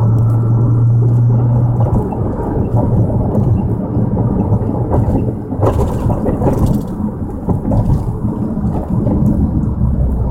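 Low rumble of a 2009 Nissan GT-R on the move, with faint, short high chirps now and then from somewhere in the car. The owner thinks the chirp may come from the suspension.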